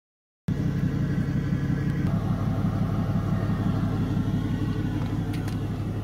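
Pickup truck engine idling steadily, with an even low rumble.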